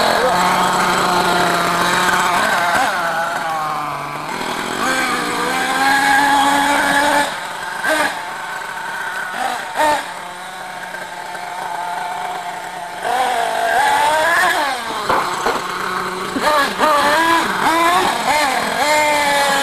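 Small nitro glow engine of a radio-controlled monster truck running hard, its pitch rising and falling as the throttle is blipped and released. It drops back to a quieter, lower running for a few seconds around the middle, then revs up again.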